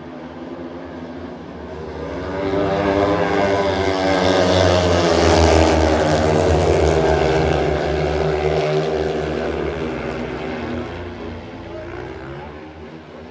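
Speedway motorcycles racing, their single-cylinder methanol engines getting louder as the riders pass close by, loudest in the middle, then fading as they move off down the straight.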